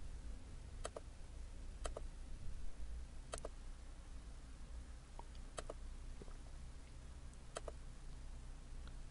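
Computer mouse button clicks, five in all, spaced one to two seconds apart, each a quick double snap of press and release, over a faint low hum.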